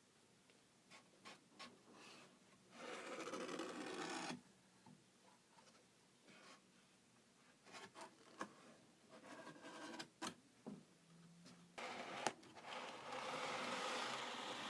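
Sneaker box and its packaging being handled: scattered light taps and clicks, with a rustling, rubbing stretch about three seconds in lasting a second and a half, and another that starts near the end and keeps going.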